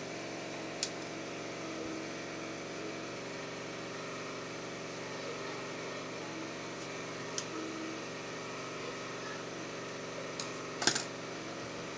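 Steady mechanical hum with several pitches, under light handling of cotton fabric with a few soft clicks, and a sharp scissors snip near the end.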